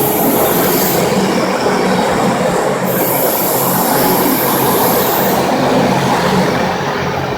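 FastPrep electric concrete floor grinder running, its diamond tooling grinding a concrete floor: a loud, steady grinding hum, with a high hiss that comes and goes twice.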